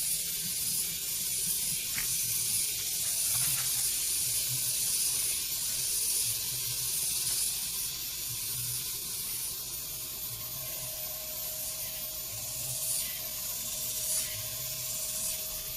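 Steady hiss of water trickling through a flooded rice paddy.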